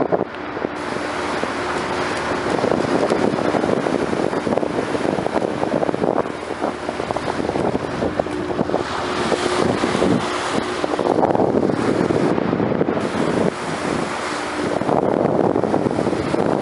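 Wind buffeting the microphone over the rush of water at a fishing vessel's bow as it moves through the sea, with a faint steady hum underneath.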